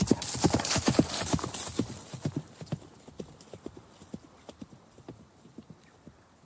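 A horse's hooves clip-clopping as the horse moves off, loud at first and then fading away over the next few seconds.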